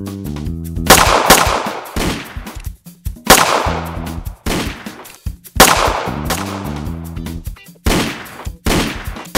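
Gunshot sound effects: about six loud shots at uneven spacing, each with a long decaying echo. Under them runs background music with a pulsing bass line.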